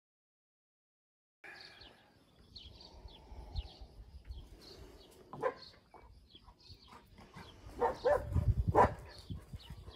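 Dead silence for about a second and a half, then open-air ambience with small birds chirping; a dog barks a few times about eight seconds in.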